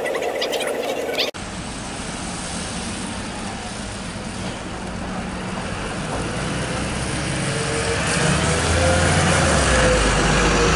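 VDL Ambassador city bus's diesel engine pulling round the corner and passing close, growing louder over the last few seconds as it nears, with a deep rumble and a faint whine that rises a little in pitch.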